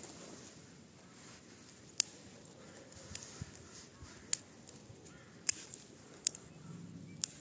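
Small twig campfire crackling: single sharp pops, about one a second, over a faint low rustle.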